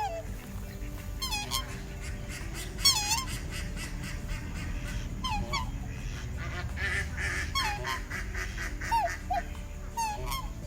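Goose honking: a series of about six separate calls, each bending down and up in pitch, spaced one to two seconds apart.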